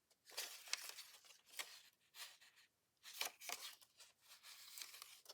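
Paper and cardstock being handled and shifted about, with light scattered rustles, crinkles and small taps.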